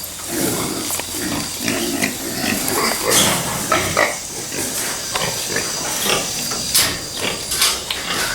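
Hogs grunting repeatedly as they are herded up into a truck, with a few sharp knocks in between.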